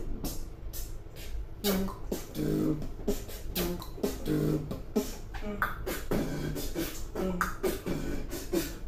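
A person beatboxing: a steady rhythm of sharp mouth-made clicks and snare sounds mixed with short pitched low bass notes.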